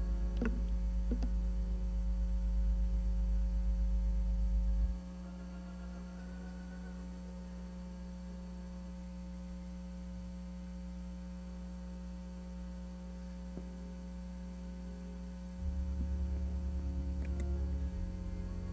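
A low steady hum that drops in level about five seconds in and comes back up near the end, with a few faint clicks in the first second.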